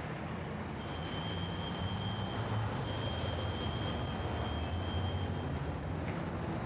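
An electric bell ringing shrilly in three presses, two long and one short, broken off after about four seconds, over a steady low hum.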